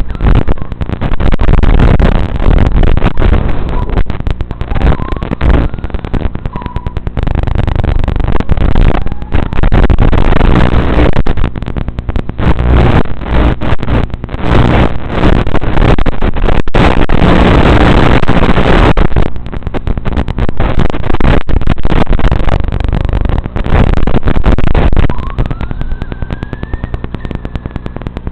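Loud, distorted running noise from an RC car, heard through its poor-quality onboard FPV audio. The rumble and crackle surge and drop as the car drives, hitting the top of the level again and again.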